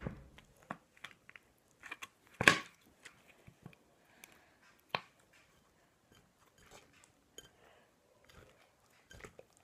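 Slime being worked by hand in a glass bowl while borax water is squeezed in from a plastic bottle: scattered sticky squishes and clicks, with a sharp knock about two and a half seconds in and a smaller one near five seconds.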